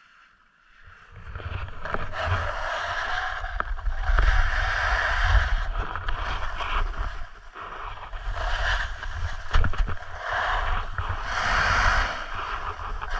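Snowboard base and edges sliding and scraping over packed snow as the rider sets off about a second in. The scraping hiss swells and fades several times, over a low rumble of wind buffeting the microphone.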